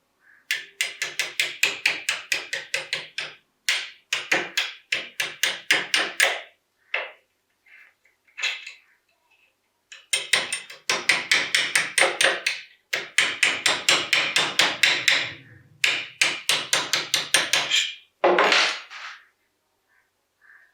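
Hammer tapping rapidly, about five light strikes a second in runs of a few seconds with short pauses between them, typical of a hammer working on a pistol part during restoration. Near the end there is one short sound that falls in pitch.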